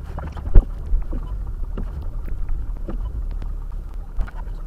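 Car interior noise while driving slowly on packed, rutted snow: a steady low rumble with scattered knocks and a loud thump about half a second in.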